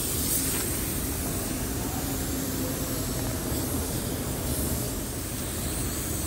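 Gravity-feed compressed-air paint spray gun spraying paint, a steady hiss.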